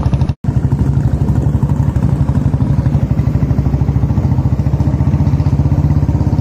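Royal Enfield Bullet motorcycles' single-cylinder engines running steadily with an even thump while riding over a rough stone track. The sound cuts out for an instant about half a second in.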